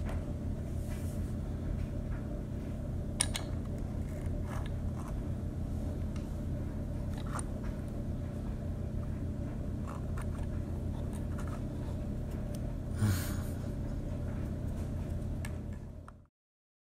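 Steady low hum with a few light clicks, and a louder brief rustle about thirteen seconds in; the sound cuts off suddenly near the end.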